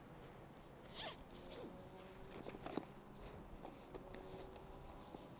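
Backpack zipper pulled open with a quick faint rasp about a second in, followed by a few soft clicks and rustles as the compartment is handled.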